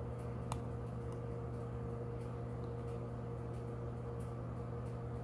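Steady low mechanical hum, with faint scattered ticks and one light click about half a second in.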